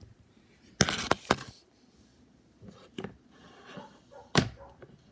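A few sharp knocks from objects being handled: a quick cluster of three about a second in, a lighter one around three seconds, and a louder single knock near the end.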